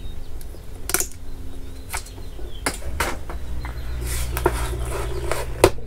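A few sharp clicks and snaps as hand cutters snip the zip tie off a shock absorber's rubber dust boot and the boot is worked loose. The loudest snap comes near the end, over a low steady hum.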